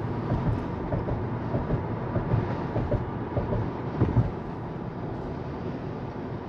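Road and tyre noise inside a Tesla's cabin at about 40 mph, with a few light thumps over the first four seconds, the loudest about four seconds in, and a smoother hum after that.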